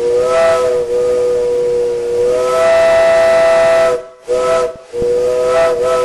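A 5-inch Georgia Railroad three-chime step-top steam whistle blowing a steady three-note chord over the hiss of steam. It sounds suddenly, swells louder on its upper note partway through, and breaks off twice for a moment before sounding again.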